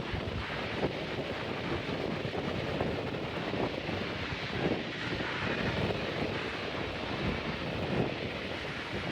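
Jet engine noise from a Boeing 777-200ER, a steady rushing sound, with wind buffeting the microphone.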